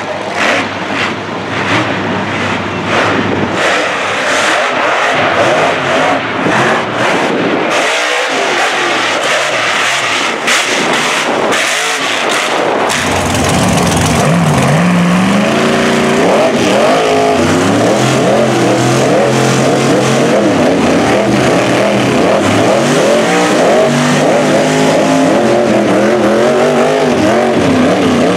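Mega truck engines revving hard. For roughly the first half, the engine rises and falls as the truck churns through mud, with many sharp crackles. About halfway through, the sound changes to engines held at high revs under load as two mega trucks pull against each other in a tug of war, tires spinning in the dirt.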